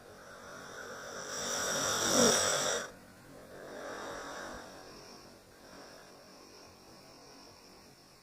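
Dog snoring: one long snore drawn in, growing louder for about two seconds and stopping abruptly, then a softer breath out.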